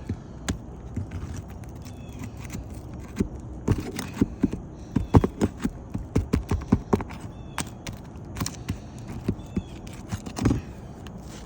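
Irregular knocks, taps and scrapes of hand tools working a stuck asphalt roof shingle loose, coming in a quick cluster through the middle and again near the end.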